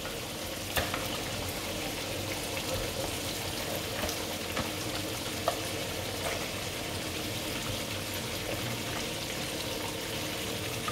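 Thick coconut-milk masala curry gravy bubbling and sizzling steadily in the pot as it simmers, with a few light knocks about a second, four seconds and five and a half seconds in.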